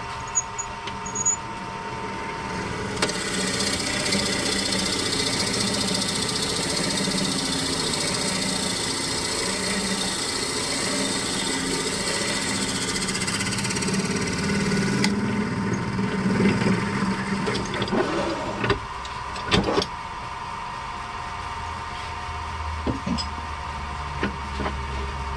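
Wood lathe running with a steady motor hum while a hand turning tool cuts a desert ironwood burl ring blank. A loud rasping cut starts about three seconds in and stops abruptly around fifteen seconds, then a few scattered scrapes and clicks follow as the tool works in the bore.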